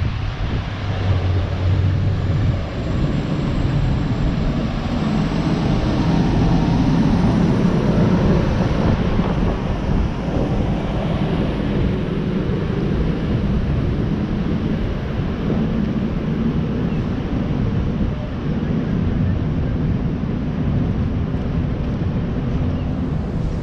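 A steady engine drone with a low hum, under wind and outdoor noise.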